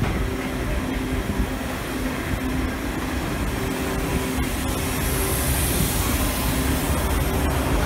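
D51 498 steam locomotive giving off a steady low rumble and hiss, with faint steady hums and a brief high hiss about five seconds in.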